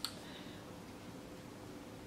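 Quiet room tone: a faint steady hiss with a low hum, after a brief click right at the start.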